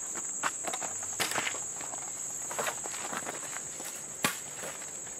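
Insects calling in one steady, high-pitched drone, with footsteps and scattered light clicks; a sharper click comes about four seconds in.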